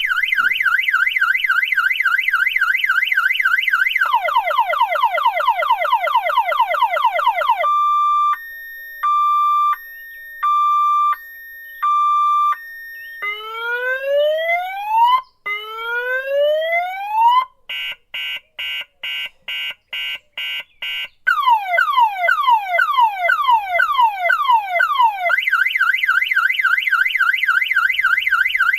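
Car alarm siren cycling through its tone patterns: a fast warble, rapid falling chirps, a slow alternating two-tone hi-lo, two long rising whoops, a run of quick beeps, slower falling chirps about two a second, then the fast warble again.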